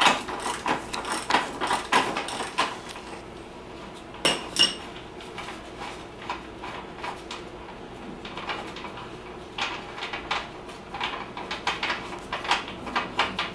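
Light metallic clicks and clinks of a hand tool working the rear axle nut off a Suzuki GSX-R 750 motorcycle, in irregular runs of a few clicks a second. Two ringing metal taps come about four seconds in, then a quieter stretch before the clicking starts again.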